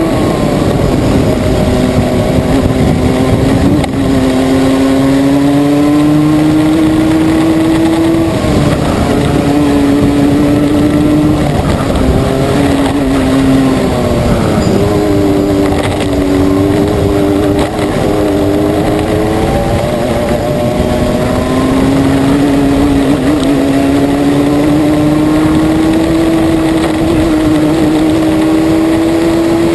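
Racing kart engine heard from on board, running hard: one loud engine note that climbs steadily on the straights and drops sharply about half a dozen times as the driver lifts off for corners.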